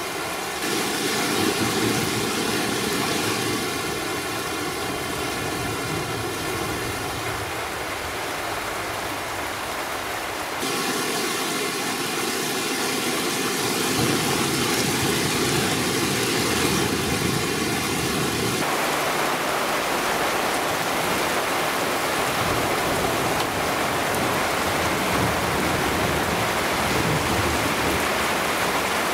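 Heavy cloudburst rain falling steadily in a dense hiss, its tone changing abruptly twice.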